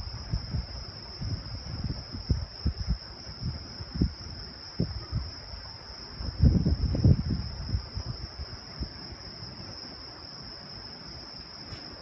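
Crickets chirring steadily in one high, unbroken tone. Irregular low thumps and rumbles run under it, the heaviest about six to seven seconds in.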